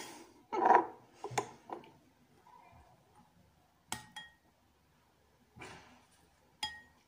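A metal spoon clinking lightly against a ceramic soup bowl a few times as someone scoops and eats soup. A short, loud, call-like sound comes about half a second in.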